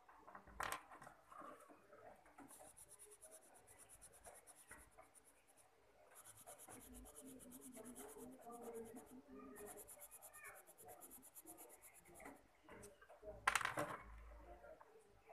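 Pencil scratching on paper in three stretches of quick back-and-forth shading strokes. There is a sharp click about half a second in and a louder one near the end, likely the pencil tapping the paper or table.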